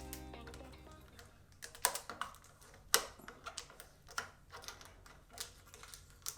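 Background music fading out over the first second, then about a dozen light, sharp clicks at irregular spacing.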